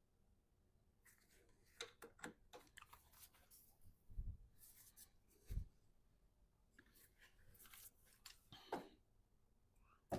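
Faint, scattered clicks, scrapes and rustles of hands working on parts under a truck's hood, with two dull low thumps about four and five and a half seconds in.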